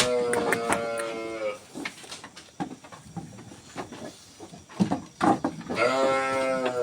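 Garut sheep bleating: one long call carried over into the first second and a half, then a second call near the end, with scattered clicks and rustling in between.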